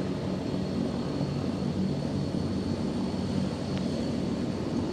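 Aircraft engines running steadily: a low drone with a thin, steady high whine above it.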